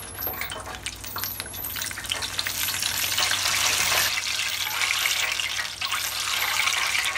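Breaded chicken fried steak and egg rolls frying in hot peanut oil in an electric deep fryer: a dense crackling sizzle of bubbling oil that grows louder over the first few seconds, then holds steady.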